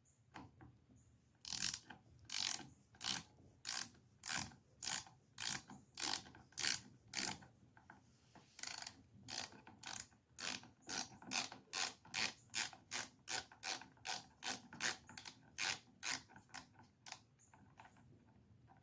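Hand ratchet clicking in short back-and-forth strokes, about two a second, as it backs out a fastener on a chainsaw, with a brief pause about halfway through.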